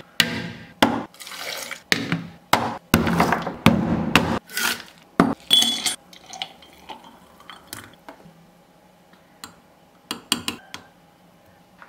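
Milkshake being made: a run of loud, irregular scraping and knocking at a plastic blender jar as coconut ice cream goes in on top of sliced banana, for about the first four seconds. Then the shake is poured into a glass mug, much more quietly, and a spoon of ice cream clinks against the glass a few times near the end.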